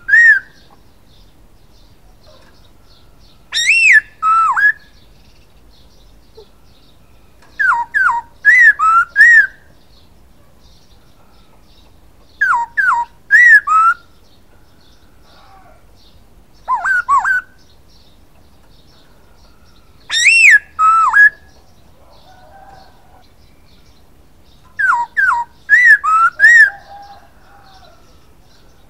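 Black-throated laughingthrush (poksay Hongkong) singing loud, clear whistled phrases of two to four sweeping notes, repeated about every four seconds.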